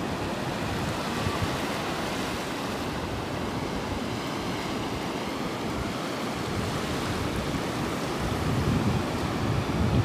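Small surf breaking and washing up a sandy beach in a steady hiss, with low rumbling wind buffeting the microphone, stronger near the end.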